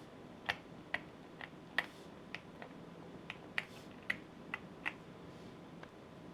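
Typing on a custom TKC Portico mechanical keyboard with lubed Alpaca v2 linear switches and ABS doubleshot keycaps. Single keystrokes come one at a time, about two a second, and stop about five seconds in.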